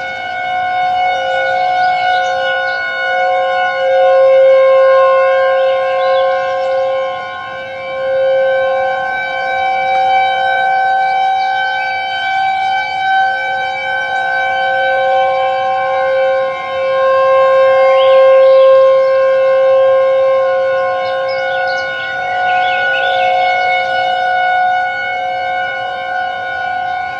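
Civil-defense-style siren held on one steady pitch, rich in overtones, its loudness swelling and easing a few times: the warning alarm of an emergency alert broadcast.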